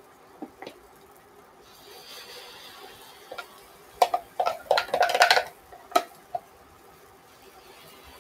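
Silicone spatula scraping pancake batter out of a plastic container and knocking against it, a quick cluster of clacks between about four and five and a half seconds in, with a few single taps around it and a faint hiss before.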